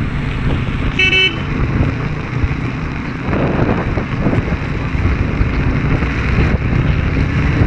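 Road traffic running steadily with a low engine rumble, and a vehicle horn giving one short toot about a second in.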